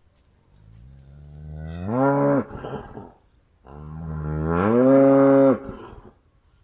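A cow mooing twice: two long moos in a row, each rising in pitch to a held note and then breaking off.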